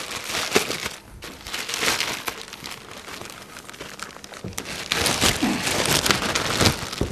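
Clear plastic wrapping crinkling and rustling as it is pulled by hand off a lathe bed extension. It is loudest in the first second and again over the last two seconds, and quieter in between.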